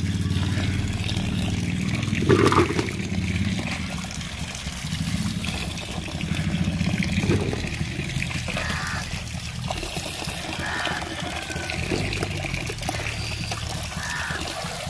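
Water pouring from a pipe into an aluminium pot of chopped taro stems as they are washed, with a steel ladle scooping through the pieces. A brief louder knock comes about two seconds in.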